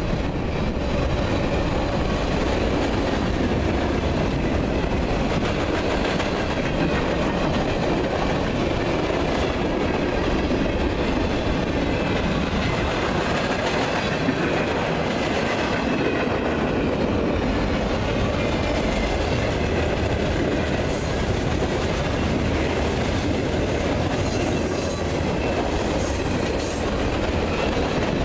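A Union Pacific freight train rolling past, its wheels clattering over the rail joints in a steady, unbroken rumble.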